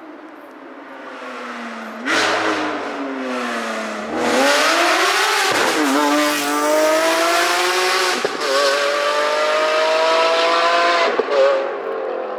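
Lamborghini Aventador SVJ's naturally aspirated V12, fitted with a Novitec exhaust system, accelerating hard. The pitch climbs steadily and drops suddenly at several quick upshifts, then climbs again. It gets much louder about two and four seconds in as the car comes past.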